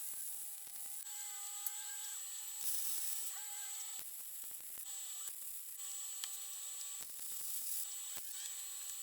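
Electric angle grinder running against steel, a steady motor whine that shifts slightly in pitch under load over a hiss of grinding.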